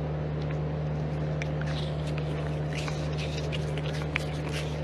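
Red panda chewing food close to the microphone: small, irregular crunching clicks over a steady low hum.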